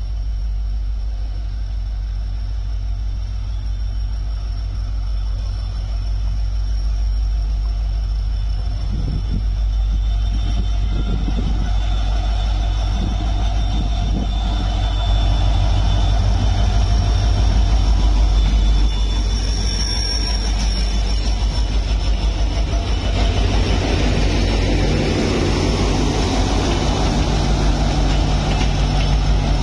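WDP4D diesel locomotive's 16-cylinder two-stroke engine running with a steady low drone and a thin high whine. It grows louder about halfway through as a second train runs past on the adjacent track, with rail clatter near the end.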